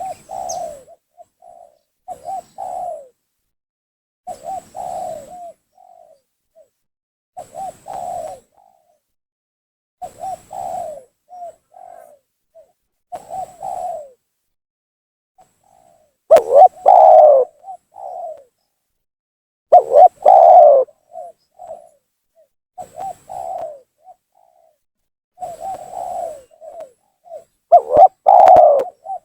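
Spotted dove cooing, a lure call meant to draw in rival doves. A short, repeated cooing phrase comes about every two and a half to three seconds, and three of the phrases are much louder than the rest.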